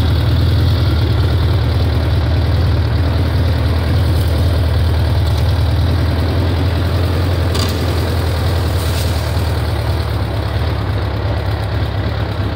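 ATV engine running at steady low revs, a constant low drone, with a couple of faint ticks about halfway through.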